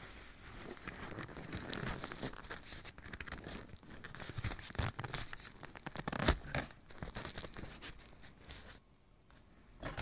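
Rooftop tent fabric rustling and crinkling as it is handled, with scattered clicks and one sharp knock a little past the middle; it dies down near the end.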